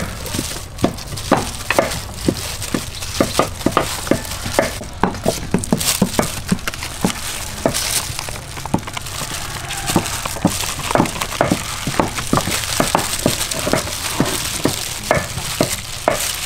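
Plastic-gloved hands tossing raw chicken pieces in flour in a metal bowl. A steady rustle of flour runs under frequent, irregular short taps and pats as the pieces are turned over and knock against the bowl.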